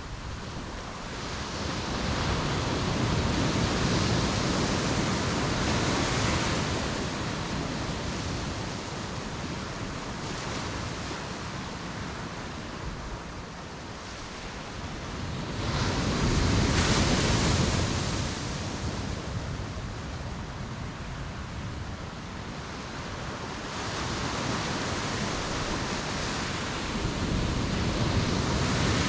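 Ocean waves breaking on the beach, the surf swelling and ebbing in slow surges, with the loudest wave about two-thirds of the way through.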